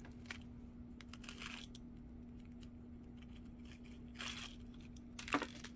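A small clear plastic bag crinkling and rustling as fingers squeeze and work it, with a few light clicks from the tiny plastic ice cubes inside, over a steady low hum.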